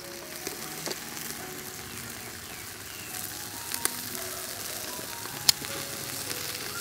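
Marinated chicken drumsticks sizzling on a wire grill rack over hot charcoal, with scattered sharp pops and crackles; the loudest pop comes about five and a half seconds in.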